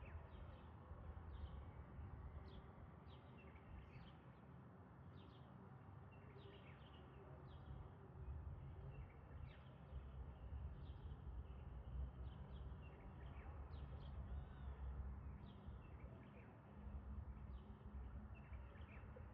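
Birds chirping, short high notes repeated every half second or so, over a faint low steady rumble.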